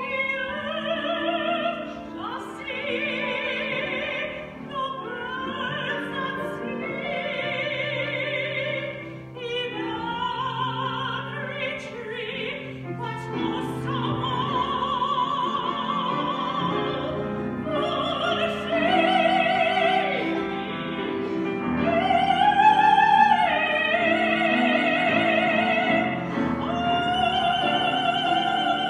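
A woman singing a slow solo with strong vibrato on long held notes, accompanied by a grand piano; her voice swells loudest a little past two-thirds through.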